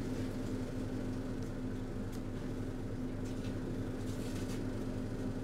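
Steady low electrical hum inside a Roslagsbanan X10p electric train car standing at a station with its door open, from the train's onboard equipment, with a few faint clicks.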